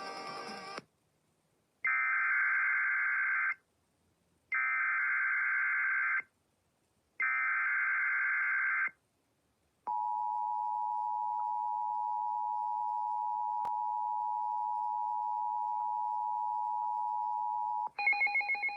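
Emergency Alert System SAME header: three identical bursts of digital data tones, each about a second and a half long with a second's gap between them. They are followed by the EAS attention signal, a steady two-tone buzz held for about eight seconds, which announces a severe thunderstorm warning. A pulsing beep starts near the end.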